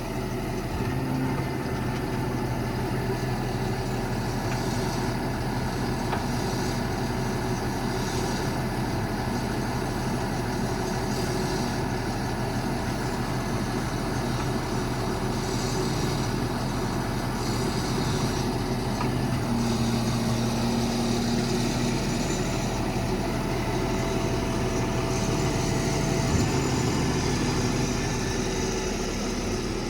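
The truck's Cummins diesel running steadily while powering the crane's hydraulics, with a higher whine coming and going a few times past the middle.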